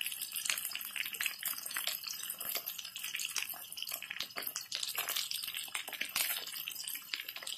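Pieces of fish shallow-frying in hot oil in a pan: a steady sizzle, thick with small crackling pops.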